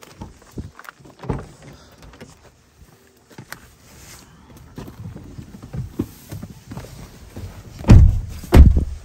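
People climbing into a Suzuki car, with rustling and small knocks of movement in the cabin. Near the end, two car doors slam shut less than a second apart.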